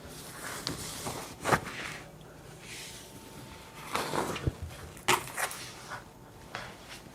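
Scattered knocks and clicks, a handful of separate short impacts with some rustling between them, as bicycle wheels and tools are handled in a workshop.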